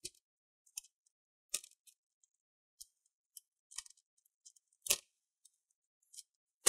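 Thin plastic insulating sheet being peeled off a laptop's keyboard plate: faint, scattered crackles and ticks, the loudest about five seconds in and again at the very end.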